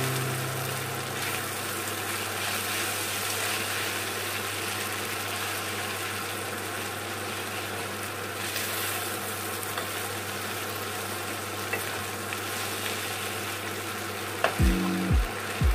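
Noodles and vegetables sizzling steadily in a frying pan as they are stirred and turned with a spatula. Background music comes in near the end.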